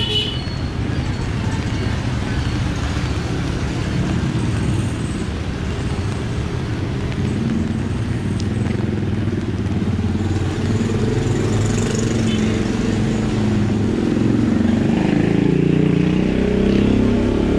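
Street traffic: motor vehicle engines running close by in a steady rumble. About halfway through one engine's note comes through more clearly, rising and falling over the last few seconds as it passes.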